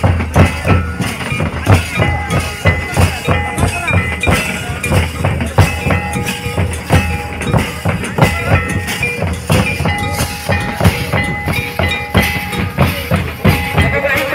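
Folk drum ensemble of large stick-beaten barrel drums playing a steady, fast rhythm, with a held melody running over the beat.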